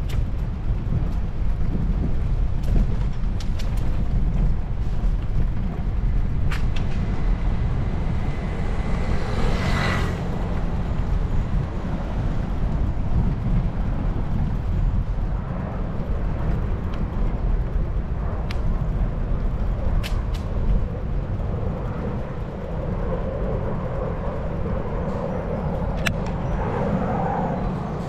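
Wind buffeting the microphone and rumble from riding a bicycle, with scattered light clicks and rattles. About ten seconds in there is a short hiss.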